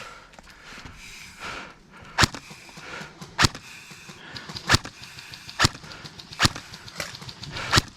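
Airsoft guns firing single shots, six sharp snaps spaced roughly a second apart.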